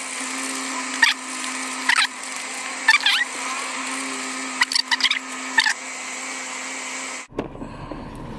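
A nickel scraping the coating off a scratch-off lottery ticket in several short strokes, over a steady low hum.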